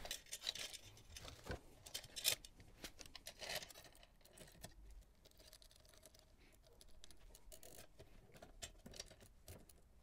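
Road bike chain being handled and fed back through the rear derailleur's jockey wheels: faint clicks and clinks of metal links, busiest in the first few seconds and sparser after.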